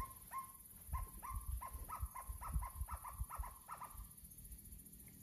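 An unidentified animal calling at night: a series of more than a dozen short, upswept notes that come faster and faster, then fade out after about four seconds.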